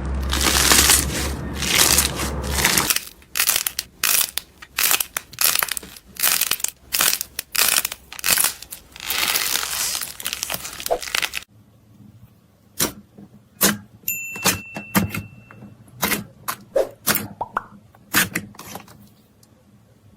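Slime being handled, pressed and squeezed: dense crackling and popping for about eleven seconds, then a sudden change to sparser, separate sharp clicks and pops.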